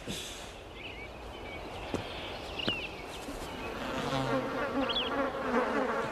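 Swarm of bees buzzing, growing louder through the second half. A few short bird chirps sound over it.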